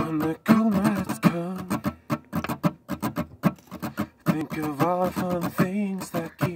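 A man singing to his own steel-string acoustic guitar, a capoed Taylor, played close to the microphone.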